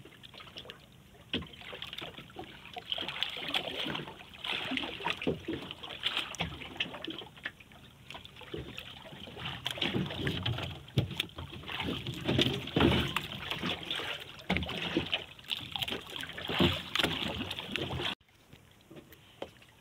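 Sea water sloshing and splashing against the hull of a small outrigger boat, with scattered knocks and bumps from the boat. It cuts off suddenly near the end.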